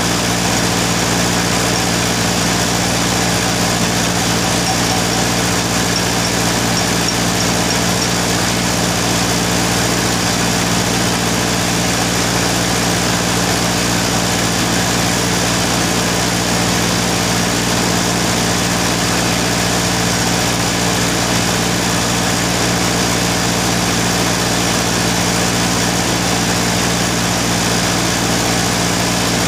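Workshop machinery running at a constant, loud steady hum, with a low droning pitch and a hiss above it, unchanged throughout.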